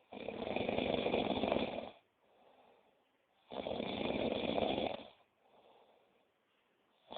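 A person snoring steadily. Two long snores, each about a second and a half to two seconds, come about three and a half seconds apart with a faint breath between them, and a third snore begins right at the end.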